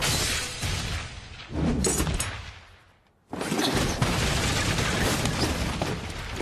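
Anime battle sound effects: dense crashing, rumbling noise with a few sharp impacts. It fades out to near silence about three seconds in, then cuts back in loud at once.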